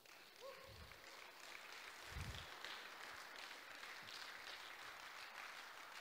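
Audience applauding, faint and steady.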